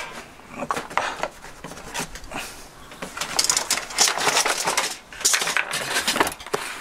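Small objects handled on a table: a few light knocks and clinks, then from about three seconds in a cardboard box rustling and scraping as it is picked up and turned over in the hands.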